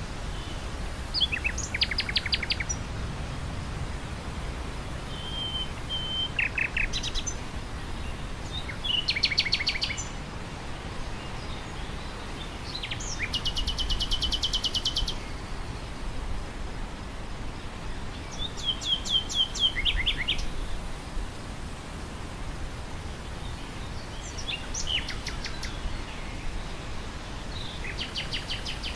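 Nightingale singing in separate phrases every few seconds, many of them fast runs of rapidly repeated notes, over a steady hiss and low rumble of wind through grass.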